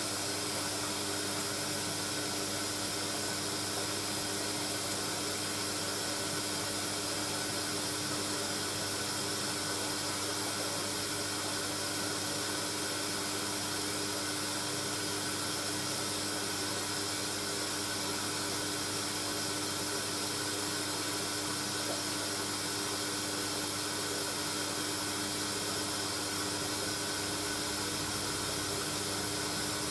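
Hoover A3060 Electronic 1100 washing machine running mid-cycle: a steady hiss with a constant low hum underneath that does not change.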